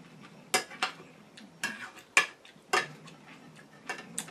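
Cutlery clinking against a plate while eating, about eight irregular sharp clicks and knocks, the loudest just over two seconds in.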